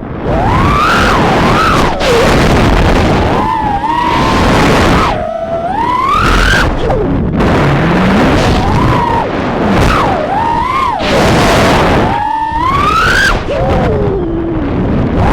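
Small 3-inch FPV quadcopter's motors whining, the pitch swooping up and down sharply with throttle over a rushing noise, with a few brief throttle drops.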